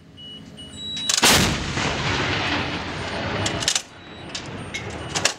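A 155 mm M777 howitzer fires a single round about a second in. The loud boom trails off over roughly two and a half seconds, followed by a few sharp clicks near the end.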